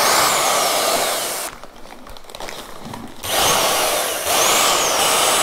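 Leman electric paddle mixer running in a plastic bucket, churning PR4 joint compound powder and water; its whine rises and falls a few times. It stops for about a second and a half, then starts again.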